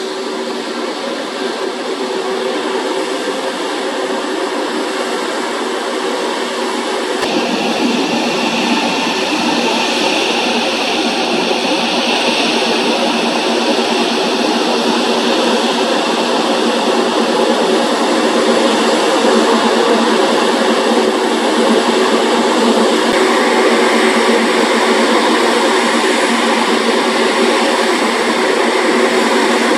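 Steady flight-deck noise of an Airbus A320neo on the ground before takeoff: its engines and air systems hum continuously. The sound steps up about seven seconds in and then grows slowly louder.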